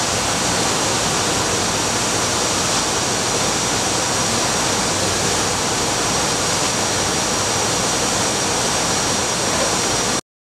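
Steady, even rushing noise with a faint thin high-pitched whine running through it, cutting off abruptly near the end.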